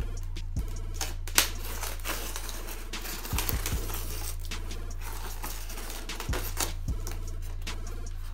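A knife slitting the packing tape around a styrofoam shipping case, then the styrofoam lid being handled and lifted off: scattered clicks and knocks with a rasping scrape a few seconds in. Quiet background music with a steady bass runs underneath.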